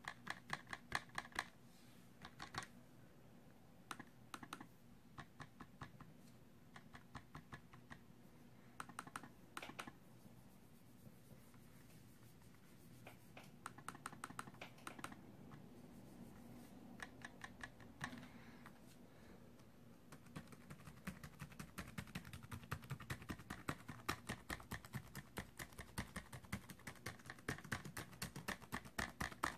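Trackpad of an MSI GS73VR Stealth Pro laptop pressed in short bursts of clicks and rattles; the owner wonders whether the missing hard drive is to blame. From about twenty seconds in, fast continuous typing on its SteelSeries keyboard.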